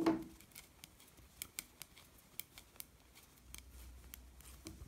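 Metal knitting needles clicking against each other as stitches are worked, a string of faint, sharp, irregular ticks.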